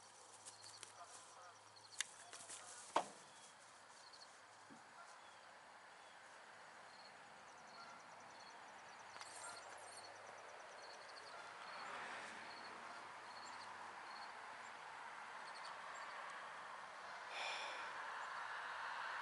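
Quiet outdoor ambience with insects chirping steadily in a fast repeating pattern. Two sharp clicks come about two and three seconds in, and a hiss of noise builds through the second half.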